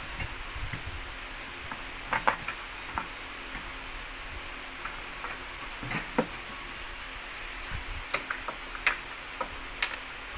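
Scattered light clicks and knocks of children's tricycle parts being handled on a table: the metal frame and the plastic rear wheels. Several come in quick pairs, over a steady hiss.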